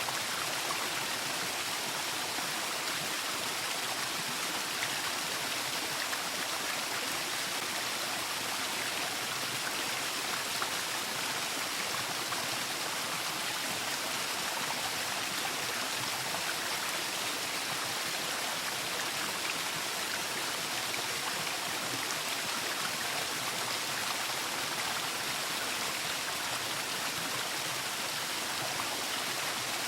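Waterfall: water falling and splashing in a steady, unbroken rush with a bright hiss.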